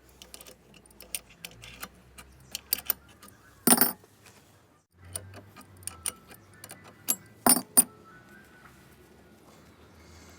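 Metal parts clinking and knocking: a scatter of sharp clicks, with a louder knock about four seconds in and two more about seven and a half seconds in.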